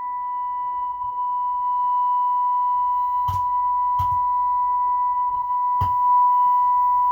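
A steady, pure test tone played through the Pioneer SX-1010 stereo receiver during its test after repair, broken by three sharp clicks about three, four and six seconds in.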